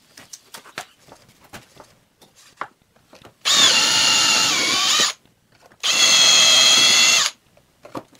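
Cordless drill with a small twist bit running twice, about a second and a half each time, with a steady whine as it bores pilot holes for screws through a wooden deck into the hull. Light clicks and taps come before the first run.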